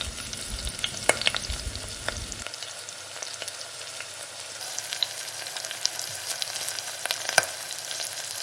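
Egg frying in a miniature fry pan, the oil sizzling steadily with scattered sharp crackles.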